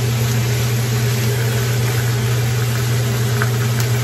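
Pork tail pieces stir-frying in a nonstick pan: an even sizzle with a few light spatula scrapes in the second half, over a loud, steady low hum.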